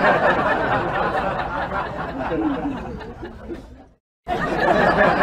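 A group of people laughing and chattering together. It eases a little, cuts out for a moment about four seconds in, then comes straight back.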